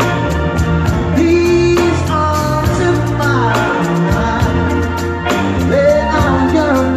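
A band playing a song live, with a singing voice over bass and a drum kit keeping a steady beat.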